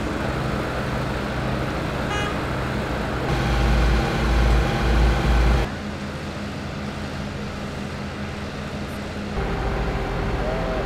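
Fire engines' diesel engines and pumps running at a steady hum, with a louder low rumble for a couple of seconds in the middle.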